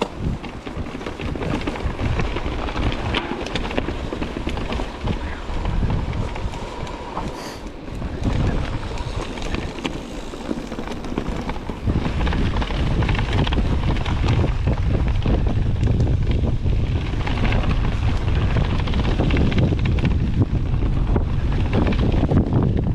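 Wind buffeting the microphone of a camera on a mountain bike ride, over rattles and knocks from the bike on rough ground. About halfway through the low wind rumble grows heavier and stays.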